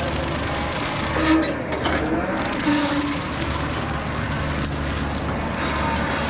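Mini excavator running steadily while its hydraulic Rut brush cutter, a two-blade swinging-blade rotary head, cuts through brush. The sound dips briefly about a second in, with a few short whining tones.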